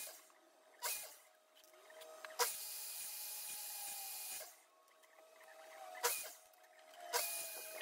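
Makita sliding miter saw chopping short pieces off a small wood blank set against a stop block. There is a run of brief cutting bursts, with one longer stretch of about two seconds of the blade cutting in the middle.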